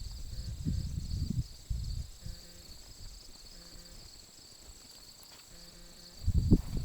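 Crickets chirring steadily in a high, even pulse, with low rumbling bumps in the first couple of seconds and again near the end.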